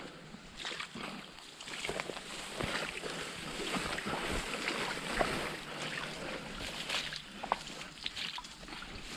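Footsteps through overgrown undergrowth, with irregular snaps and rustles of twigs, brambles and leaves underfoot and brushing past.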